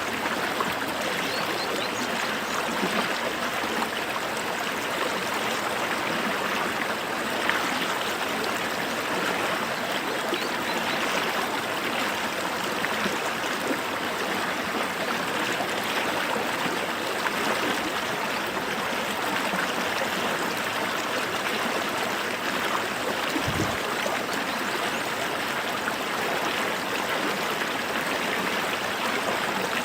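A small creek running steadily, water rushing and trickling over rocks in an even, unbroken wash.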